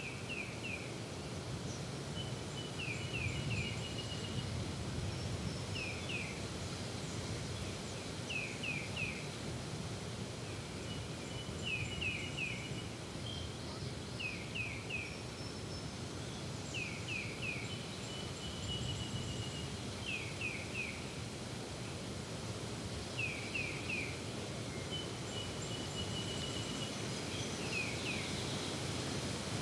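Outdoor field ambience: a steady low background noise under birdsong, one songbird repeating a phrase of three quick falling notes every two to three seconds, and a second thin, even trill sounding now and then between them.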